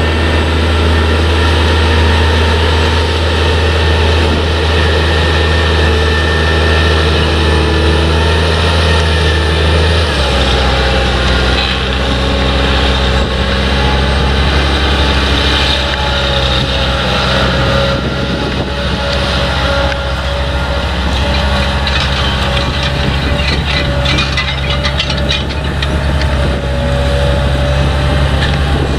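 Potato harvesting machinery running steadily under load, a deep engine hum with a steady drone, whose pitch shifts abruptly about ten seconds in; faint rattling joins later.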